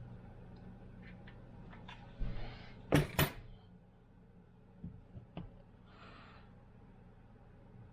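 A few sharp clicks and knocks of small hard objects being handled, the loudest two close together about three seconds in, with brief rustles, over a low steady hum.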